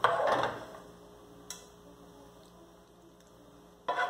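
Wooden spoon scraping meat sauce out of a frying pan, with one click in a lull, then a run of quick knocks of spoon on pan near the end.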